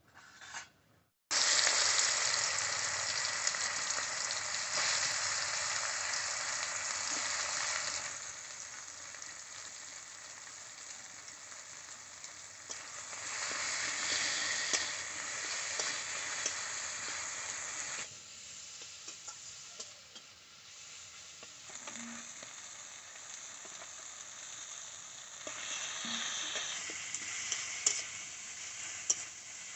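Food sizzling in hot oil in a pan, with the occasional click and scrape of a utensil stirring it. The sizzle starts suddenly about a second in and steps down and back up in loudness several times.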